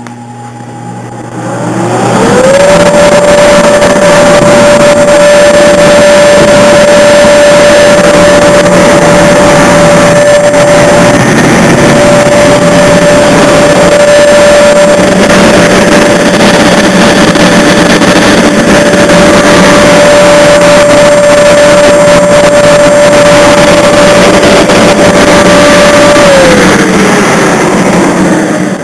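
Inflatable bounce-house blower switched on: its motor spins up with a rising whine, runs loud and steady with rushing air, then is switched off and winds down with a falling whine near the end.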